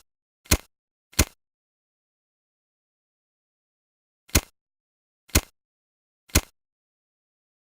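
Cigarette lighter clicking: five short, sharp clicks, two close together near the start, then after a pause of about three seconds three more, one a second.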